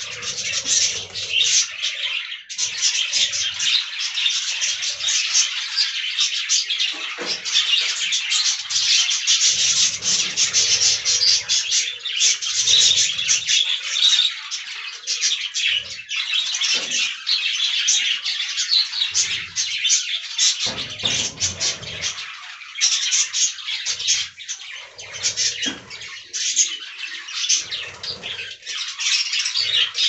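A flock of budgerigars chattering: many overlapping chirps and warbles with no break.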